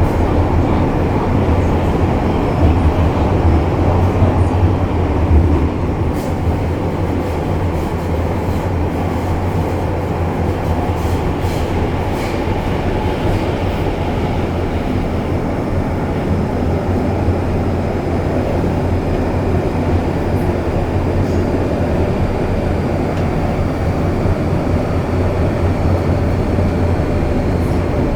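MTR M-Train electric metro train running steadily on the Kwun Tong Line, a continuous rail rumble with a strong low hum. A few light clicks come through in the first half.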